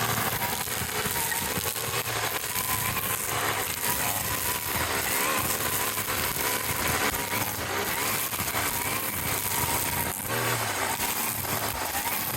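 A small engine running steadily, with a steady rushing noise over it and a faint wavering whine.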